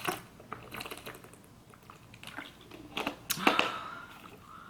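Close-miked eating sounds: fries being chewed, with scattered small mouth clicks and a louder cluster of mouth noises about three seconds in.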